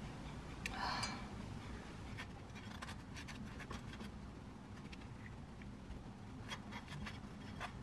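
Butter knife spreading mashed avocado onto toast on a ceramic plate: soft scraping with light clicks of the knife, and a louder scrape about a second in.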